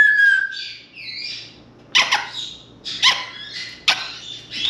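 African grey parrot vocalizing: a short, slightly falling whistle, then a string of short, harsh calls about once a second.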